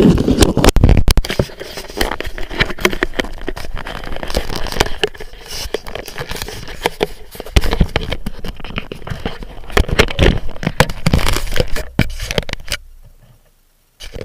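Handling noise on a camera's microphone: dense rubbing, scraping and knocking as the camera is moved about and set in place. It fades out near the end, followed by one more knock.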